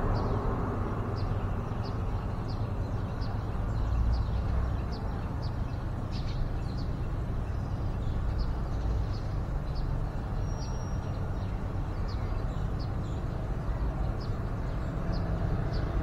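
Steady low outdoor rumble with a run of short, high chirps repeating about twice a second.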